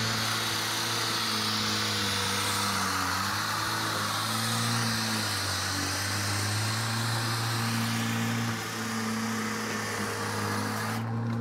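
Corded electric hedge trimmer running steadily, its motor humming and its blades buzzing as it cuts through the hedge, the pitch dipping briefly a couple of times.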